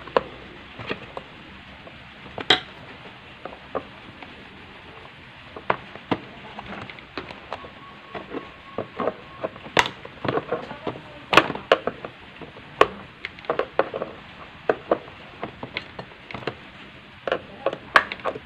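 Irregular plastic clicks, taps and small knocks as fingers and a screwdriver work the push-on switch loose from a Philips blender's plastic base housing. The clicks are sparse at first and come thicker in the second half.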